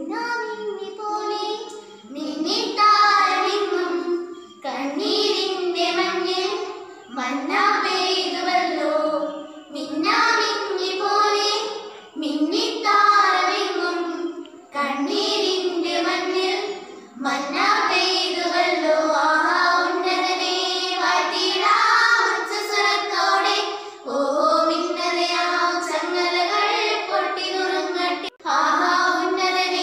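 Children singing a song in phrases of about two seconds each, with short breaks for breath between them.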